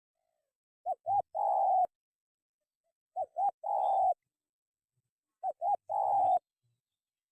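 Spotted dove (tekukur) cooing: three phrases, each two short coos followed by one longer coo, repeated every two seconds or so.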